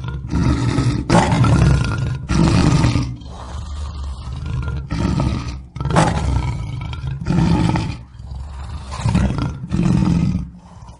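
Lion roaring: a run of short, deep roars, about one a second.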